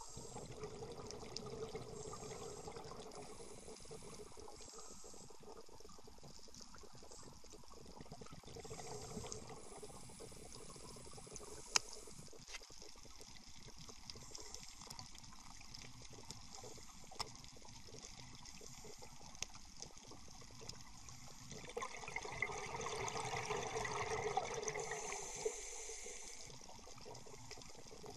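Scuba breathing heard underwater: the hiss of a regulator and the rush of exhaled bubbles, recurring every few seconds, with a louder stretch of bubbling about twenty seconds in and an occasional sharp click.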